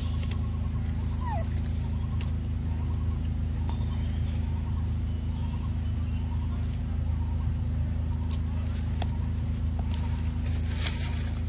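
A steady low hum, like an engine or motor running, with a few faint clicks and a short chirp about a second in.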